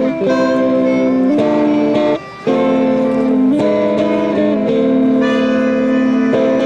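Melodica playing held, reedy chords that change every second or so, with an electric guitar accompanying. The music breaks off briefly about two seconds in, then carries on.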